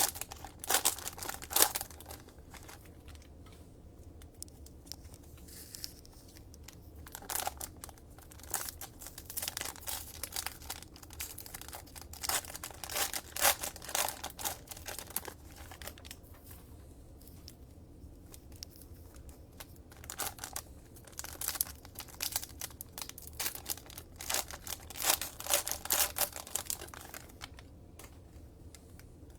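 Trading card pack wrappers being torn open and crinkled, in repeated bursts of crackling with short quieter spells between.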